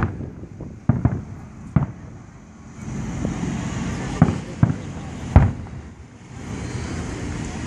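Aerial firework shells bursting overhead: a series of sharp bangs, about six in a few seconds, the loudest a little past five seconds in, with a steady rumble between them.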